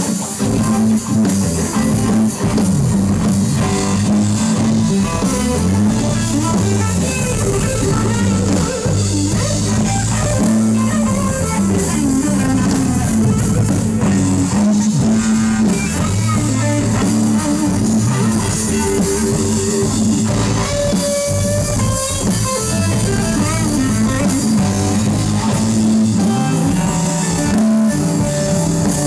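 Live electric blues-boogie band playing: a Stratocaster-style electric guitar plays lead lines with string bends over a drum kit and a repeating low boogie riff.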